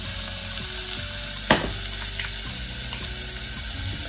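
Chopped onion sizzling in olive oil in a saucepan on the hob: a steady frying hiss. A single sharp click comes about a second and a half in.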